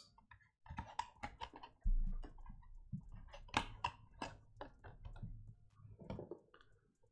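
A trading-card box and foil card packs being handled on a desk: a string of light clicks, taps and handling noises, with one dull thump about two seconds in.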